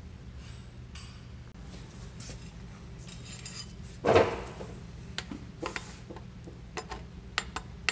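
Light metallic clinks and clicks of an engine oil pump and its steel bolts being handled and fitted onto the crankshaft main bearing cap, with one louder thump about four seconds in.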